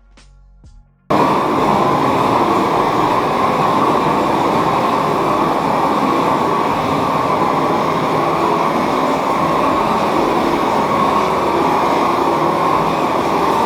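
Propane blowtorch running with a loud, steady, even rush. It cuts in abruptly about a second in and holds level throughout.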